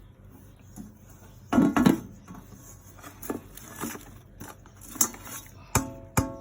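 Fresh kitchen scraps being tipped from a plate into a compost bucket: a few knocks and rustles, loudest about one and a half seconds in, and a short ringing clink of the plate near the end.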